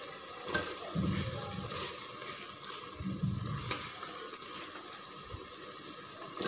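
A metal spoon stirring mixed vegetables and soya chunks into a frying masala in a metal pot, scraping and tapping against the pot over a steady sizzle of oil.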